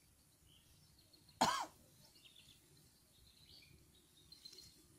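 One short, loud cough about a second and a half in, over faint bird chirps.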